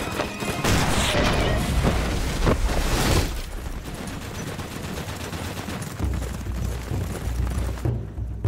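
A volley of gunfire, many rifle and shotgun shots close together, for about the first three seconds. It then drops to a quieter stretch, with a low rumble coming in about six seconds in.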